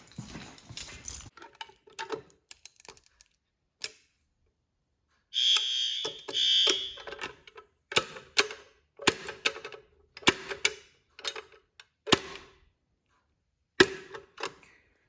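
A fire alarm horn sounds two short buzzy blasts about five seconds in, then stops. A string of sharp clicks and knocks follows.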